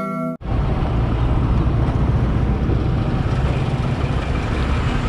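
Yamaha sport motorcycle riding along a road, its engine running steadily under a heavy rush of wind on the camera's microphone. A chiming jingle cuts off in the first half second.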